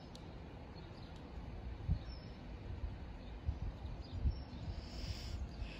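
Wind rumbling on the microphone, with a few stronger gusts, over faint outdoor background noise; no train is passing.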